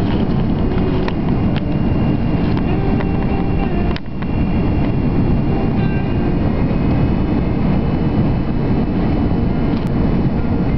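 Steady airliner cabin noise of an Airbus A330-300 on final approach, heard from a window seat beside the wing: low engine drone and airflow rush. A few faint clicks sound over it, and there is a short dip in level about four seconds in.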